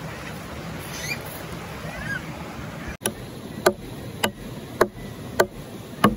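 Steady rush of river water with a couple of short bird chirps. About halfway through, a camping hatchet starts chopping into a log: five even strikes, a little over half a second apart.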